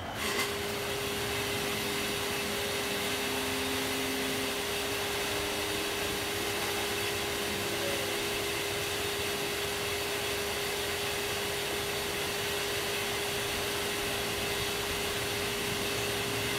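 A motor-driven machine comes on abruptly and runs steadily: an even whooshing whir with a steady hum under it.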